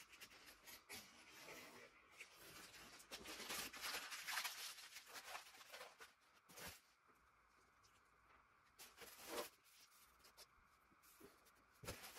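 Faint rustling and crinkling of paper and plastic wrapping as parts are handled and unpacked from a cardboard box, with one sharp click about two-thirds of the way through.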